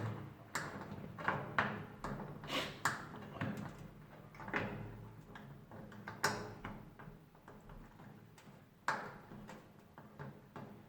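Irregular clicks, taps and knocks of electric oven parts being handled during disassembly, about a dozen over the stretch, the sharpest about six seconds in.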